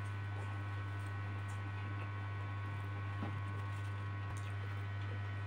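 Steady low electrical hum, with a few faint soft clicks of a man chewing a mouthful of instant noodles.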